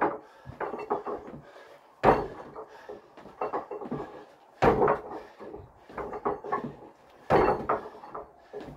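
Feet in trainers landing on a stack of paving slabs during box jumps: three heavy thuds about two and a half seconds apart, with lighter steps and scuffs between them.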